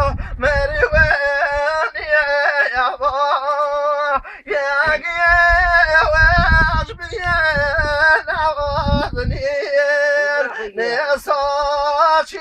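Singing: a high voice holds and ornaments long melodic notes with short breaks between phrases. Low thuds sound under it in the first second and again from about five to nine and a half seconds in.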